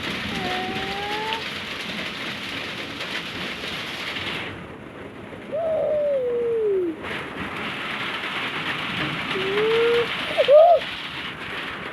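Steady hiss of rain falling on a surface, thinning out for a couple of seconds in the middle. A few short vocal sounds slide up or down in pitch over it, the loudest near the end.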